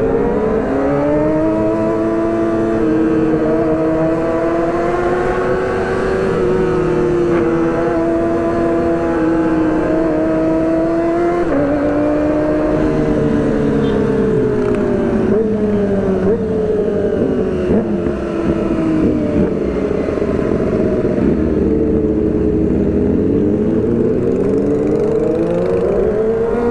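Sport motorcycle engine running hard under way. It revs up at the start and holds a steady high pitch, drops in steps about 12 and 16 seconds in, sags, then climbs again near the end.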